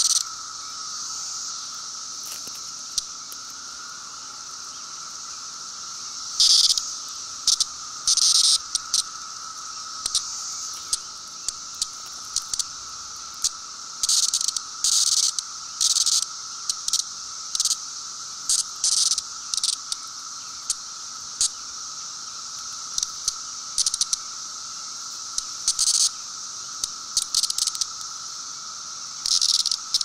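Periodical cicada held between fingers, giving irregular short buzzes that start and stop abruptly, some brief and some lasting about half a second. Underneath runs a steady high hum.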